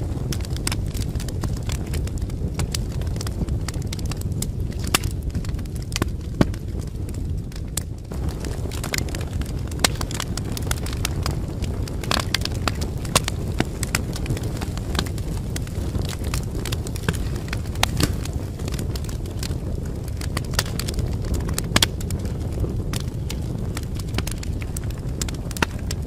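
Wood fire in a fireplace crackling, with frequent irregular sharp pops over a steady low rumble.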